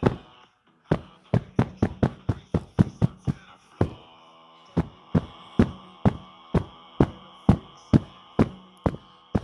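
A musical device sounding steady held hooting tones, with sharp knocks keeping a regular beat. The knocks are the loudest part; they come quickly, about four a second, then settle to about two a second as a fuller chord of tones comes in.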